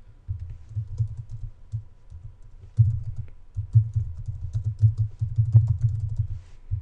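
Typing on a computer keyboard: a quick, uneven run of key clicks and soft thumps, busiest from about three seconds in.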